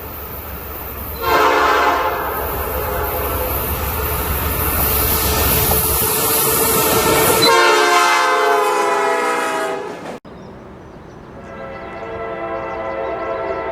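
Train horn sounding a chord over the rumble of a passing train, loudest shortly before it cuts off abruptly about ten seconds in. A second train horn chord then fades in and holds near the end.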